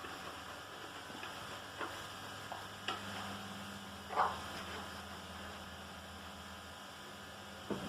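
A few light clicks of utensils and dishes being set into a dishwasher rack, the loudest about four seconds in, over a steady low electrical hum.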